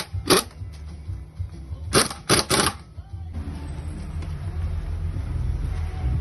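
Sharp knocks during the loader gearbox repair: one just after the start, then three in quick succession about two seconds in, over music. A steady low rumble takes over past the halfway point.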